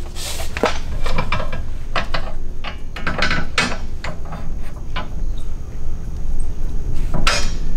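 Steel coil spring and the clamp arms of a Branick 7600 wall-mount spring compressor clanking and scraping as the spring is set in place and the lower arms are swung around it: a string of irregular metal knocks and clicks.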